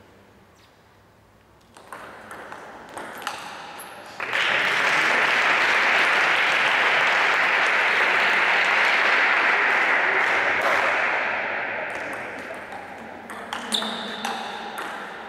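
A few sharp clicks of a table tennis ball. Then applause starts suddenly, runs for about eight seconds and fades away. Near the end the ball bounces on the table a few times with a ringing ping.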